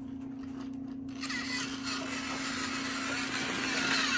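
Battery-powered toy Percy engine running on plastic track, its small electric motor humming steadily. From about a second in, a louder whirring with squeaky grinding sets in as it pushes into the wagon and toy cars.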